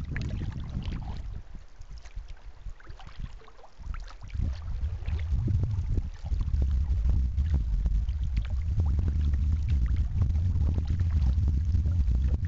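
Wind buffeting the microphone, building up about four seconds in, over light splashing and trickling of river water against a kayak's hull.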